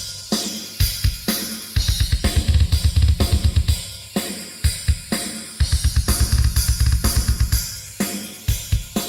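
Acoustic drum kit playing a beat of snare and cymbals, broken twice by fast runs of bass drum strokes, about seven a second, each lasting two seconds or more.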